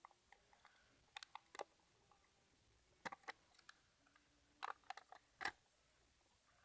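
Paper and tape being handled at close range: three short clusters of small crinkles and clicks, the last one about five seconds in being the loudest.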